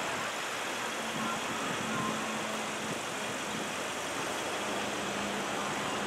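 Steady outdoor background noise, an even hiss with a faint low hum running under it.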